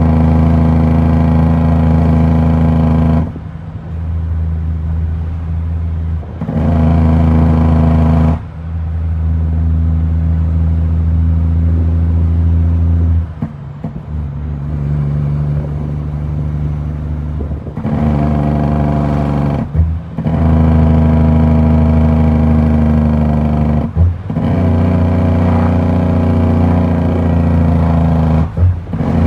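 Heavy diesel truck engine pulling steadily, heard from inside the cab, its note dropping off sharply several times and picking up again.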